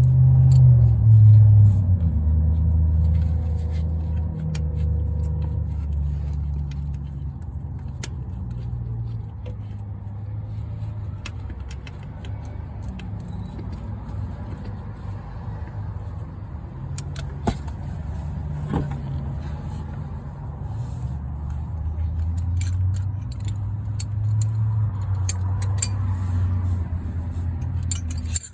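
Low rumble of a motor vehicle engine running, swelling and fading, with scattered light metallic clicks and clinks.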